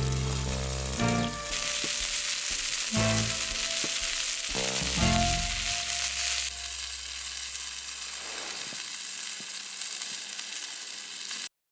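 Meat sizzling on a hot iron griddle, an even hiss that carries on after background music with sustained notes ends about halfway through. The sizzle cuts off suddenly just before the end.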